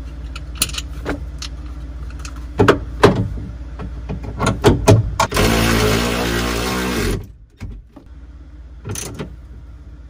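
Metal clanks and knocks as a seat-belt anchor and its bolt are fitted at the roof mount, then a power tool runs for about two seconds driving the bolt and stops abruptly.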